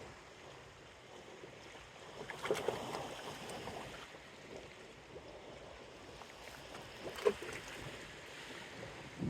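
Wind and small waves lapping at the shore of a bay, gusting up a couple of seconds in, with a single sharp click about seven seconds in.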